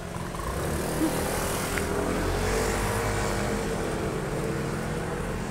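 Road traffic: a motor vehicle passing close by, its engine hum and tyre noise swelling over the first couple of seconds and then easing off a little.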